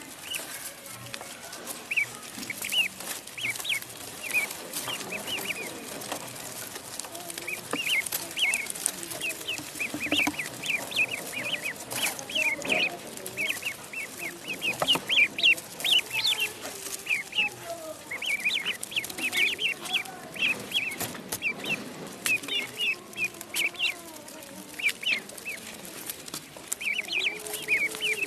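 Ducklings peeping: a constant stream of short, high chirps, several a second, from more than one bird.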